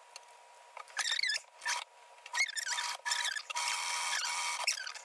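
Electric sewing machine running steadily for about two seconds, its motor giving an even whine, with a few short high squeaks before and after.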